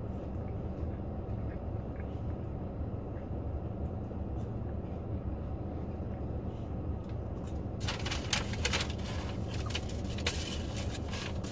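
Steady low rumble of a car's cabin. About eight seconds in, crackling rustling of food packaging being handled starts and keeps going.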